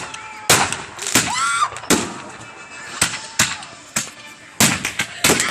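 Fireworks going off in an irregular string of sharp bangs, about half a dozen, with a brief shout about a second and a half in.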